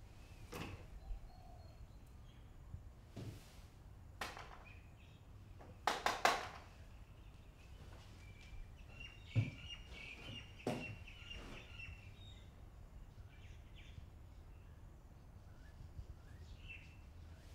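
Quiet ambience with faint bird chirps and a handful of scattered knocks and creaks, the loudest cluster about six seconds in, over a low steady hum.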